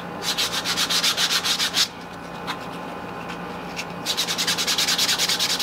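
Sandpaper rubbed by hand over a carved foam horn cut from anti-fatigue floor mat, in quick back-and-forth strokes to smooth the rough carving. A run of strokes, a pause of about two seconds, then the sanding starts again.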